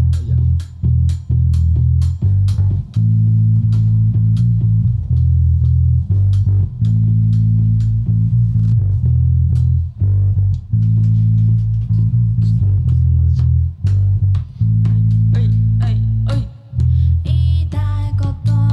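Live rock band playing an instrumental passage: a loud electric bass line under electric guitar, with drums keeping a steady beat of sharp cymbal and drum hits. Near the end a new sustained pitched line enters above the band.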